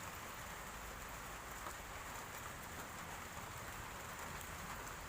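Steady faint background hiss, even throughout, with no distinct event standing out.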